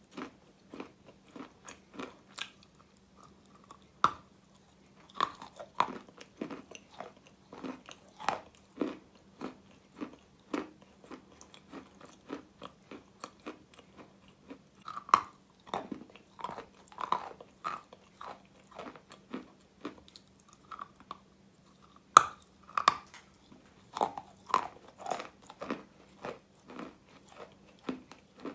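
Close-miked chewing and crunching of a piece of Russian chalk, short crunches about one or two a second, with a few sharper bites cracking off pieces, the loudest a little past the middle.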